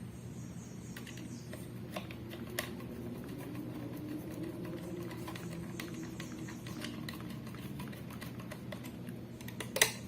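Light irregular ticks and clicks of a Phillips screwdriver driving a small screw into a laptop hard-drive caddy's mounting bracket, over a steady low hum, with one sharp click near the end.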